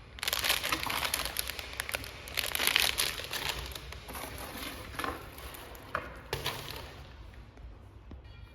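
Packaging crinkling and rustling in bursts as it is handled, with a few sharp clicks in the middle.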